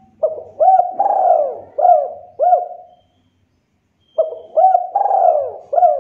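Spotted dove cooing: two phrases of about five coos each, separated by a pause of about a second, the longest coo near the middle of each phrase.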